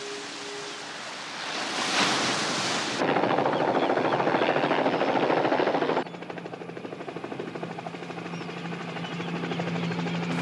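A loud rushing noise swells and then cuts off abruptly about six seconds in. From then on a helicopter's rotor chops steadily over a low engine hum.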